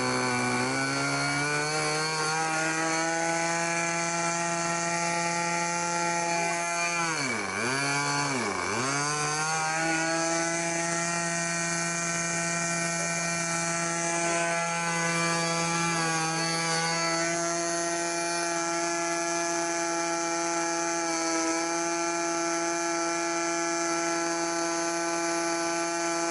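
Twin-cylinder model airplane engine running hard in a static run-up. It picks up revs in the first second, drops sharply and recovers twice about seven and eight and a half seconds in, then holds a steady high pitch.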